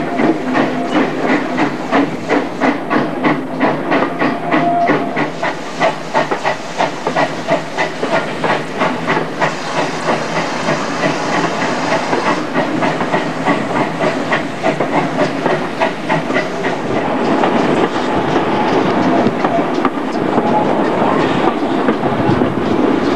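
Steam-hauled heritage train on the move, heard from a carriage window: regular beats of about two to three a second with wheels running on the rails. A burst of steam hiss comes about ten seconds in, and in the last few seconds the beats give way to a steadier, louder running noise.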